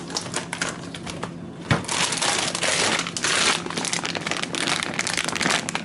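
Plastic food packaging crinkling as it is handled. A few scattered crackles come first, then a sharp knock just under two seconds in, followed by dense, continuous crinkling.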